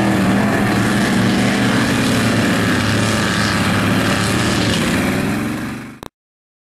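Mega mud truck's big engine running at high revs as it ploughs through a mud bog, its pitch rising and falling. It fades near the end and cuts off to silence.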